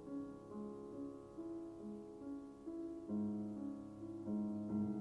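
Background piano music: a slow, gentle melody over held chords.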